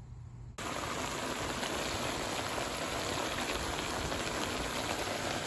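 Food sizzling in hot oil in a frying pan: a steady crackling hiss that starts suddenly about half a second in.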